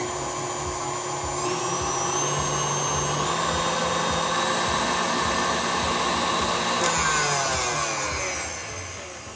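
KitchenAid stand mixer motor running with its wire whisk beating wet ingredients into a meringue; the motor pitch steps up twice in the first few seconds, then slides down and the sound fades as the mixer is slowed near the end.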